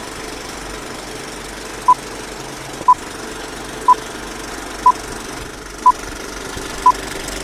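Old-film countdown leader sound effect: a short beep once a second, six in all, over a steady mechanical whir and crackle like a running film projector.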